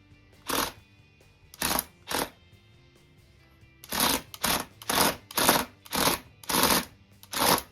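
Small electric drive motors of a Reobrix brick-built excavator whirring in short bursts as the remote control is pulsed: three bursts spaced apart, then a quicker run of about two a second over the last four seconds.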